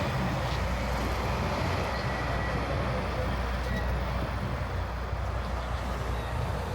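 Steady city street traffic: a low engine rumble from vehicles on the avenue under a continuous haze of urban street noise.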